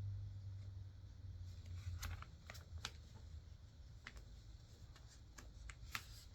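Faint, scattered light clicks and taps, a few seconds apart, over a low steady hum that fades out about two seconds in.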